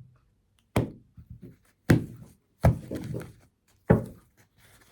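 Four sharp thunks about a second apart, with lighter clicks between them: tarot cards being put down or tapped on a tabletop.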